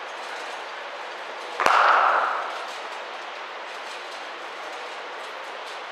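A cricket ball struck once by a cricket bat, a single sharp crack about one and a half seconds in that echoes briefly around the indoor hall, over a steady background noise of the hall.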